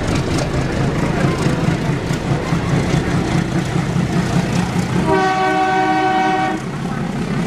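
Trains running side by side: a steady rumble and rail clatter as a passenger train's coaches pass close alongside. About five seconds in, a diesel locomotive horn sounds once for about a second and a half.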